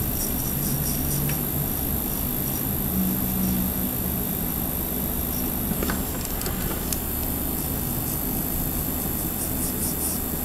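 Electric nail drill (e-file) running steadily with a fine bit, pushing back a cuticle; a low hum whose pitch shifts briefly now and then. A few faint clicks come about six seconds in.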